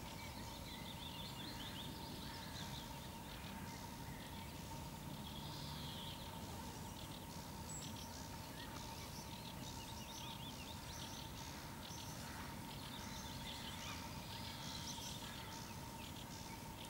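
Birdsong: several small birds singing and calling over one another, over a faint low rumble and a steady thin hum.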